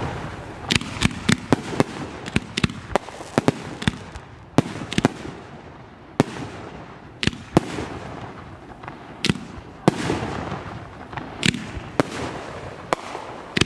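Fireworks display: aerial shells bursting in an irregular string of about twenty sharp bangs, each trailing off in an echo, with a brief lull a little past the middle.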